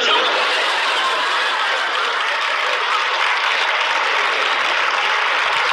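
Studio audience laughing and applauding, a long steady wash of clapping and laughter.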